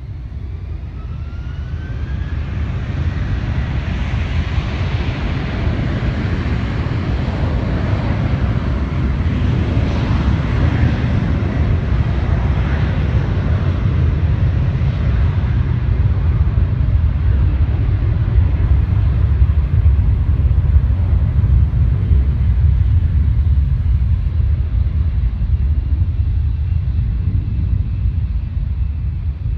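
Jet airliner engines at takeoff thrust: a deep, loud roar and rumble that grows over the first few seconds, holds, then slowly fades as the aircraft climbs away.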